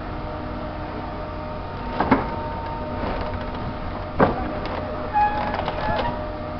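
A steady engine hum with a few steady tones running through it. It is broken by two sharp knocks about two and four seconds in, and a short clatter near the end.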